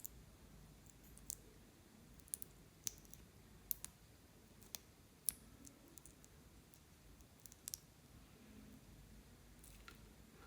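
Faint, sharp little clicks, about a dozen scattered unevenly, with near silence between them.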